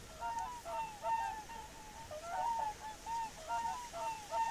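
A large flock of swans calling, many short overlapping calls, several a second.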